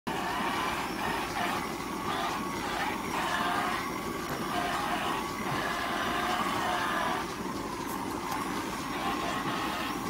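Milking-parlour machinery running: the motor of a handheld rotary teat-cleaning brush whirring, its pitch wavering as the brushes are pressed onto the teats, over a steady machine hum.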